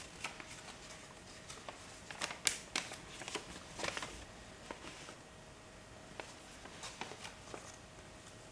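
Folded paper instruction leaflet being handled and opened: scattered soft rustles and crinkles, busiest in the first half, over a faint steady hum.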